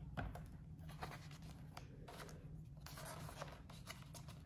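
Faint rustling of a hardcover picture book's paper pages being handled and turned, with a light tap near the start and soft scattered brushing sounds.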